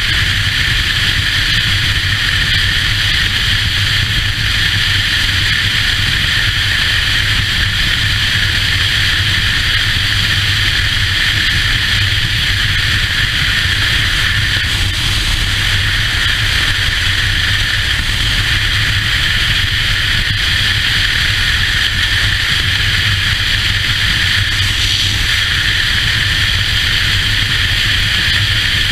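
A motorcycle cruising at steady highway speed, heard from a camera mounted on the bike: a constant rush of wind and road noise over the engine's low, even running.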